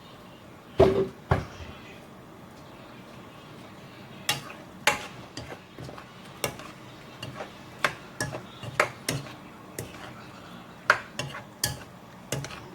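Cooking utensils knocking and clinking against a pot and dishes at irregular intervals. Two loud knocks come about a second in, followed by scattered lighter clicks.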